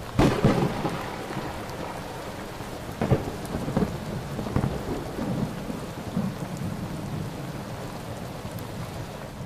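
Thunderstorm: steady rain with rolling thunder, loudest in a crack just after the start and another about three seconds in.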